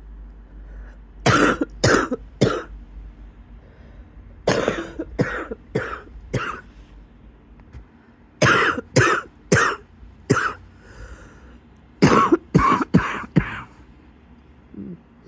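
A person's wheezy cough, coming in four fits of three to five coughs each, a few seconds apart.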